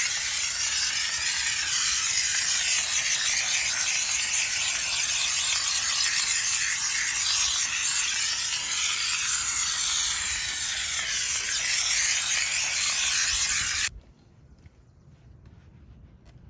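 Steam cleaner wand jetting steam onto a car's interior door panel: a loud, steady hiss that cuts off abruptly near the end, leaving only faint background.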